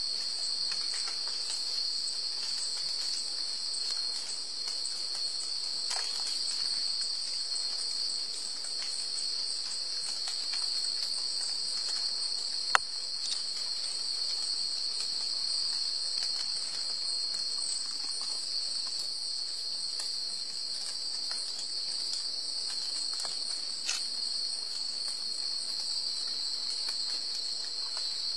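Insect chorus, a steady high-pitched cricket-like trilling drone that never breaks, with one sharp click about halfway through.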